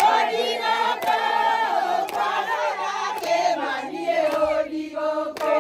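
A group of women singing and chanting together in a high register, repeating a short phrase, with a few sharp hand claps.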